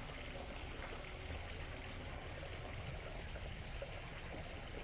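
Steady trickling of water running over a garden pondless waterfall.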